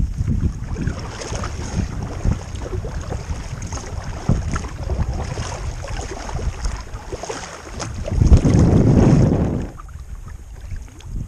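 Wind buffeting the microphone over water lapping and splashing against a kayak's hull on a choppy lake. A strong gust rumbles about eight seconds in, then drops away, leaving calmer water near the end.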